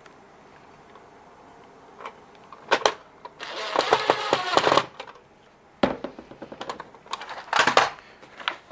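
DeWalt 20-volt cordless driver running for about a second and a half with a changing motor pitch, driving a screw into a plastic printer drawer. Sharp clicks and clatter of plastic parts being handled come before and after it, with a short louder burst near the end.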